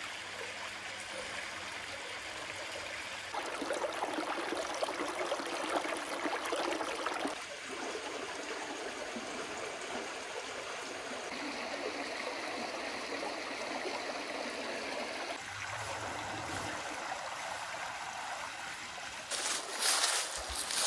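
Shallow rocky creek trickling and babbling steadily over stones. A few louder rustles come near the end.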